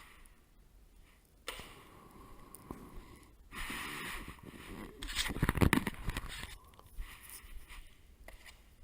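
Metal drywall knife scraping and spreading setting-type joint compound over a wall repair. A run of scraping strokes is loudest about five to six seconds in.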